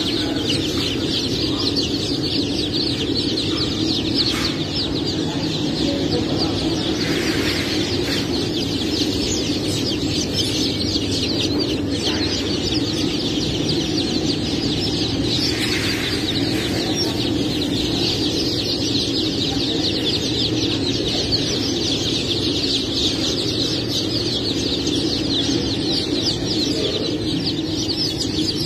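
A large crowd of Cảo-cross chicks peeping together in a dense, unbroken chorus, over a steady low hum.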